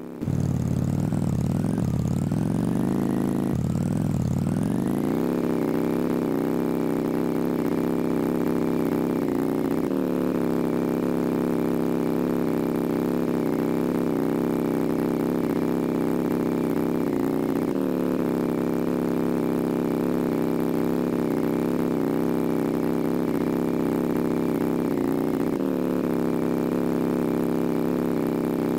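A motor starts up suddenly, its pitch swinging up and down for the first few seconds, then settles into a steady run with slight dips about every eight seconds.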